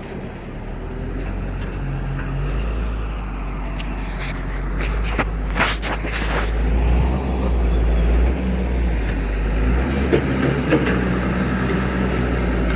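Engine running steadily with a low rumble. A few short sharp scrapes or knocks come about five to six seconds in.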